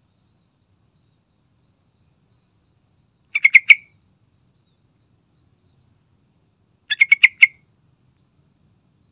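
Yellow-vented bulbul calling: two short bursts of about four quick, bubbling notes, a few seconds apart.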